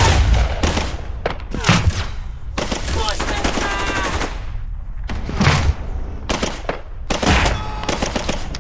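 Battle gunfire: repeated bursts of machine-gun and rifle fire, with a dense rapid burst about halfway through.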